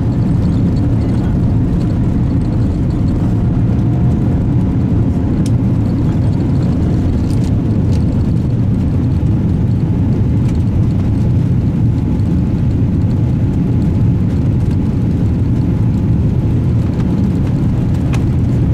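Steady low rumble of jet engine and airflow noise inside the economy cabin of a Boeing 787-8 airliner, unchanging throughout.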